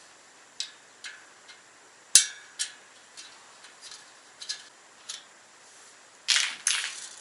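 Irregular metallic clicks and clinks of a bicycle spoke and spoke nipple knocking against the wheel rim while the nipple is being fitted, with one sharp click about two seconds in and two brief scraping rattles near the end.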